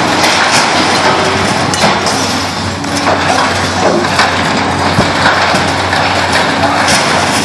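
Bridge demolition: continuous crunching and breaking noise with many sharp knocks and cracks scattered through it, over a steady low hum.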